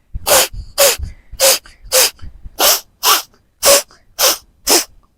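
Forceful puffs of breath blown out through the nose, about two a second in an even rhythm, one nostril pressed shut with the thumb: clearing leftover salt water from the nasal passages after jal neti.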